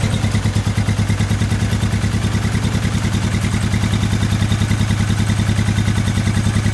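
Honda CX400 Euro (NC08) V-twin idling steadily through an aftermarket WR'S (Double R's) muffler, a regular beat of exhaust pulses.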